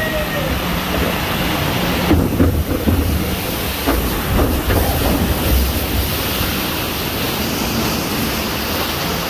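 Log-flume boat running down a short water chute: a steady rush of water with a low rumble, and uneven knocks and surges of water through the middle as the log runs down and splashes along the channel.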